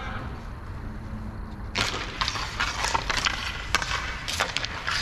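Roller hockey play: a quick run of sharp clacks and cracks from sticks and puck, starting about two seconds in after a quieter stretch.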